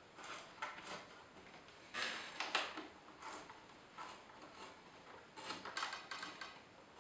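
Screws being tightened to fasten the computer workstation's metal side cover back on: irregular short scrapes and clicks of metal parts, coming in small clusters with pauses between.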